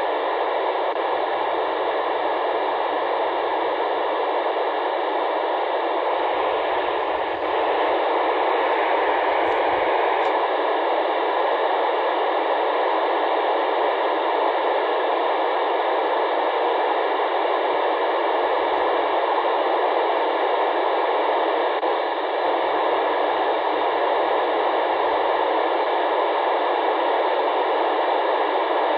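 Steady FM radio static: open-squelch receiver hiss from a radio tuned to the SO-50 amateur satellite downlink. The hiss is thin, with no bass or high treble.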